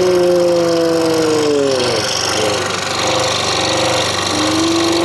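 Scroll saw running with its fresh blade cutting through a wooden puzzle board. A tone in the sound falls away about two seconds in and climbs again near the end.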